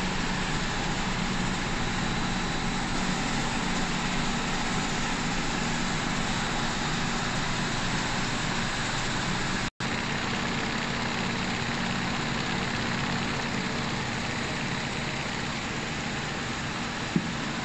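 Steady hum and rushing noise of a Roastinstep seaweed drying and sterilization line running, with a spiral conveyor among the machinery. It breaks off for a moment about ten seconds in, and there is a single sharp click near the end.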